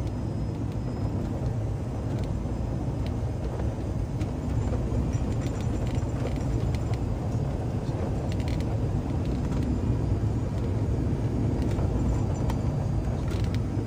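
Steady rumble and rush of a small Cessna jet's engines and airflow, heard from inside the cockpit, on short final approach just below the decision height. A few light clicks and rattles sound through it.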